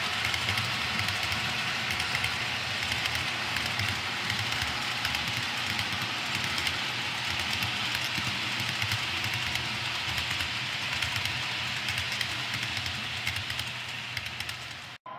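HO-scale model freight cars rolling past on the layout's track: a steady rolling rumble with many small clicks from the wheels over the rail joints, fading away near the end.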